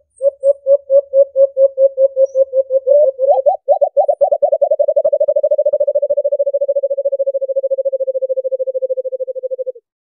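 White-eared brown dove calling: a steady string of low hoo notes, about five a second, then a few slightly higher, louder notes about three seconds in. These run into a faster series that slides a little lower in pitch and stops abruptly near the end.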